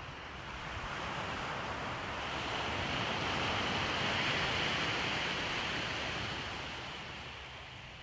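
Sea surf: a wave washing up the beach, its rush swelling to the loudest point about four seconds in and dying away near the end.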